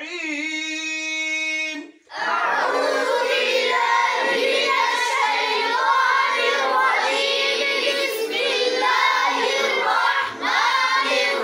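Quran recitation taught by call and response. A man's voice holds one long drawn-out note, then about two seconds in a group of boys takes up the verse, chanting it together in unison.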